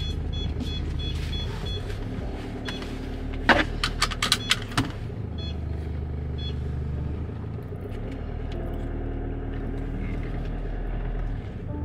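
Steady low hum of a car running, heard inside the cabin, with a quick run of high beeps in the first two seconds and two more beeps later. A cluster of sharp clicks about four seconds in is the loudest part.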